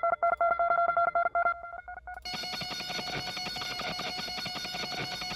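A guitar tremolo-picking one high note, rapidly re-struck. About two seconds in, a distortion effect switches on and the note turns thick and buzzy, sustaining steadily.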